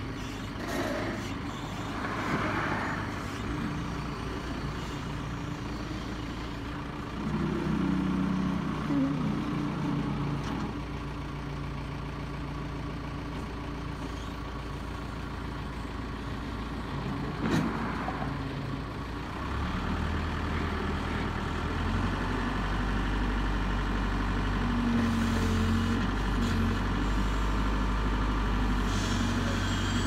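Backhoe loader's diesel engine running as the machine drives and works. It gets louder with higher engine tones about seven seconds in, and deeper and louder again from about twenty seconds on. There is a single sharp knock a little after the middle.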